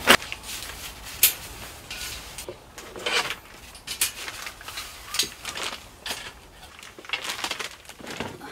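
Camping gear being handled and set down: irregular knocks and clatters from a black plastic folding crate and a storage box, with a sharper knock about a second in.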